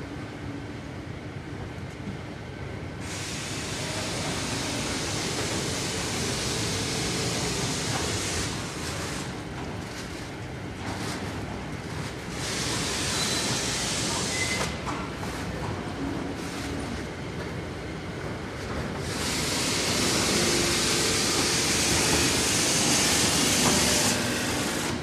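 Machinery of a melamine paper lamination line running, a steady rumble with a loud hiss that comes in three times: for about five seconds starting three seconds in, briefly in the middle, and for about five seconds near the end.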